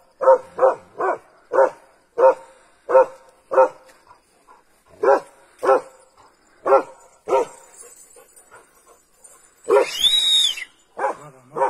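A dog barking repeatedly, short single barks about one to two a second with a few longer gaps, and a longer, higher-pitched cry about ten seconds in.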